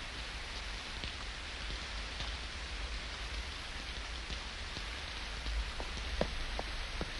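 Steady rain falling, an even hiss with scattered drips. From about five and a half seconds in, a few footsteps tap and splash on wet pavement.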